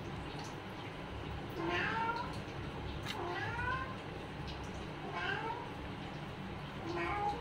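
Newborn kitten mewing just after birth: four short, high-pitched cries, each falling in pitch, about one every second and a half.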